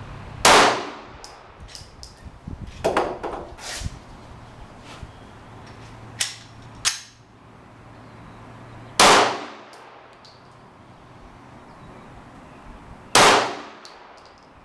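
Glock 17 9mm pistol fired three times, widely spaced: once right at the start, again after about eight seconds, and a third time near the end, each shot with a short ringing tail. Several fainter sharp reports fall between the shots.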